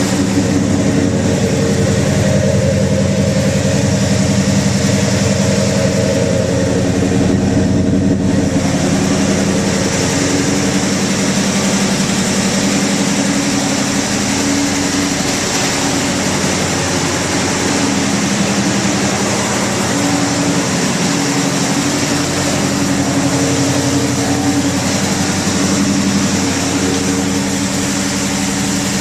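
1971 Chevrolet Monte Carlo SS's 454 big-block V8 idling steadily; it is running a little rich.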